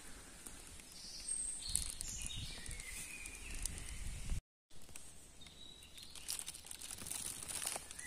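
Footsteps rustling and crackling through dry fallen leaf litter, faint, with a few short bird notes stepping down in pitch about a second in.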